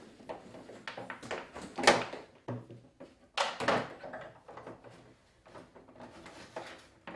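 A corded jigsaw and its cable are packed into a hard plastic tool case and the lid is closed, making a few separate knocks and clatters. The loudest comes about two seconds in, a cluster follows at about three and a half seconds, and smaller knocks come near the end as the lid goes down.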